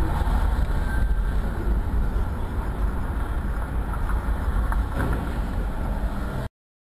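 Steady low road rumble of a moving car, heard from inside the car, with a haze of engine and tyre noise and no distinct events; it cuts off suddenly near the end.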